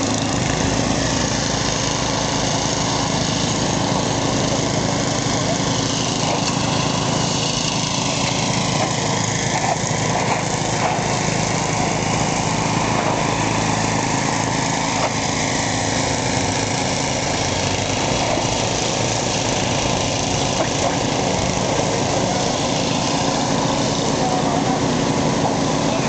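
A small engine running steadily at an even level, with a constant low hum.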